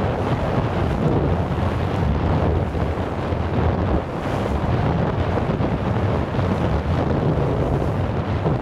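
Wind buffeting the microphone over choppy water: a steady, low rushing noise.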